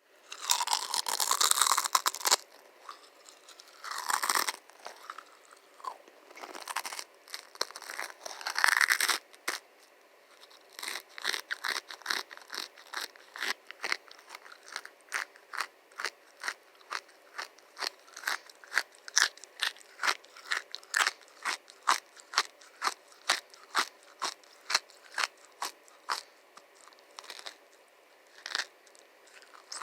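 Close-up crunching and crackling in several bursts over the first nine seconds, then a long, irregular series of separate sharp pops or clicks, about one or two a second.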